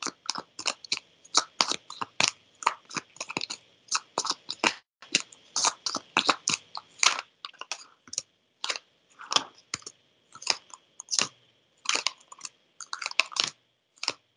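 A deck of tarot cards handled and shuffled by hand: a fast, irregular run of short papery snaps and swishes, several a second, with brief pauses between runs.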